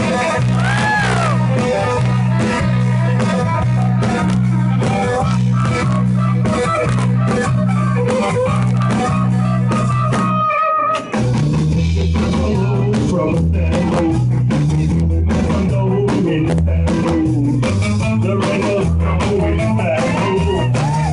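Live rock band playing loudly, with electric guitar, a steady repeating bass line, drums and saxophone. About halfway through the sound drops out for a moment and comes back with a different bass line.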